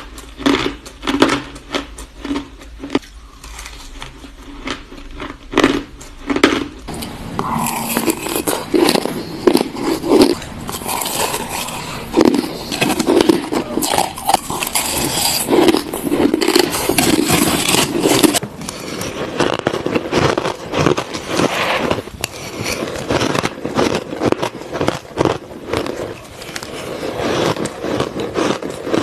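Crushed ice being bitten and crunched close to the microphone: a quick run of sharp cracks and crackles that grows denser from about seven seconds in.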